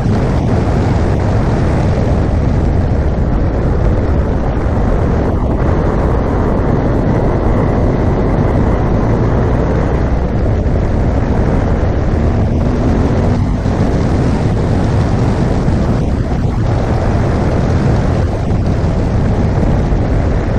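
Wind rushing over the microphone of a moving motorcycle, with the BMW R1200GS Adventure's flat-twin engine running steadily underneath.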